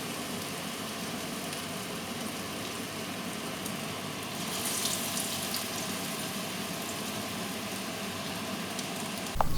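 Medu vada (urad dal batter fritters) sizzling in hot oil as they deep-fry: a steady bubbling hiss, swelling a little about halfway through.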